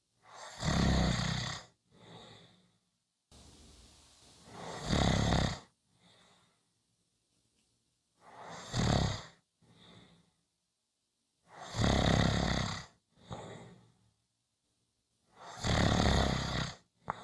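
A person snoring in a slow, even rhythm: five loud snores about every four seconds, each followed by a shorter, quieter breath.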